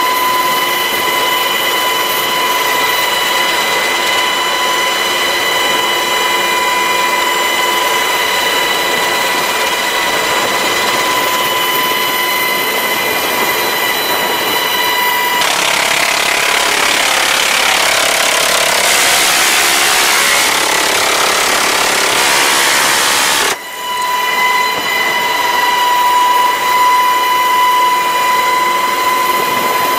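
Inside an HH-60 Pave Hawk helicopter cabin, the turbines and gearbox give a steady high-pitched whine. About halfway through, the door-mounted 7.62 mm minigun fires for several seconds as a dense, loud buzz, which cuts off abruptly before the whine carries on.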